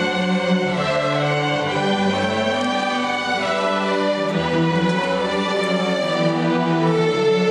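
A student string orchestra of violins, violas and cellos playing together, held bowed notes moving from chord to chord at a steady level.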